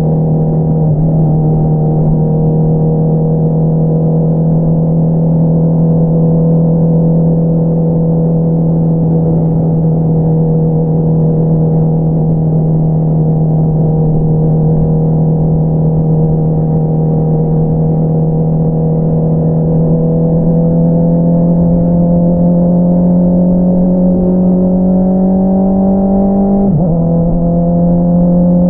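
Honda CBR650R inline-four engine through an Akrapovič single-outlet exhaust, running at a steady note while cruising for most of the time. Over the last several seconds it accelerates, its pitch rising, and the note drops sharply for a moment at an upshift near the end.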